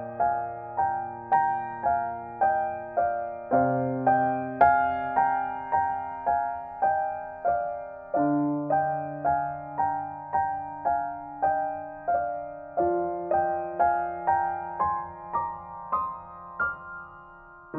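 Gentle solo piano music: a steady figure of repeated notes, about two or three a second, over low chords that change every four to five seconds.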